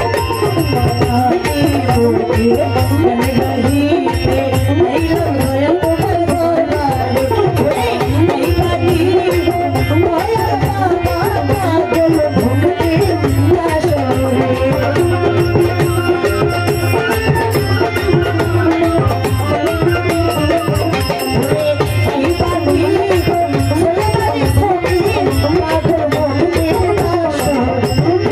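Live Baul folk song performance: a female singer's wandering melodic line into a microphone over busy percussion keeping a steady beat.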